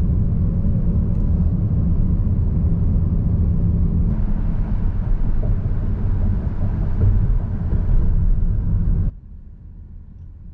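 Road noise inside a moving car's cabin: a loud, steady low rumble of tyres and engine. About four seconds in, as the car passes through a tunnel, the rumble gets a little brighter. About nine seconds in it drops sharply to a much quieter low hum as the car creeps slowly through a parking lot.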